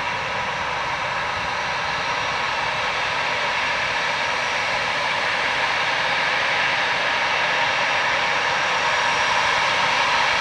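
Airliner engines running, a steady whooshing roar that grows slowly louder.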